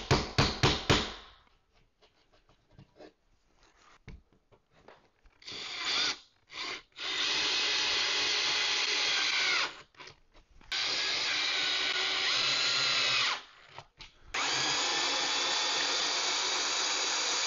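A few quick hammer taps on a drywall anchor. After a pause, a cordless drill/driver runs in short blips and then three steady spells of two to three seconds each, driving into the drywall and through the metal TV wall plate.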